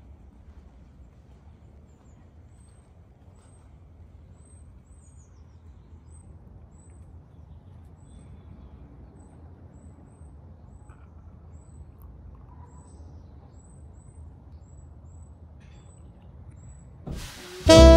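Faint outdoor ambience: a low rumble under a small bird giving short, high chirps, roughly one or two a second. Near the end, jazz music with saxophone starts loudly.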